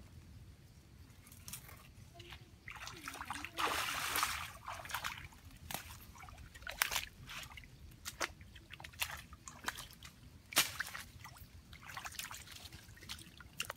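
Shallow muddy water sloshing and splashing in short, irregular bursts, with a longer splash about four seconds in.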